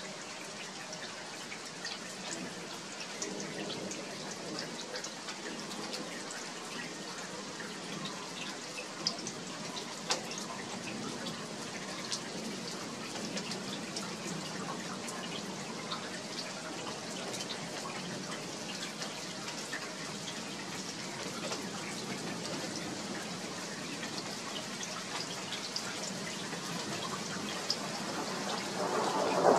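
Steady rain falling, with individual drops dripping and ticking on nearby surfaces. Right at the end a louder rumble of thunder begins to swell.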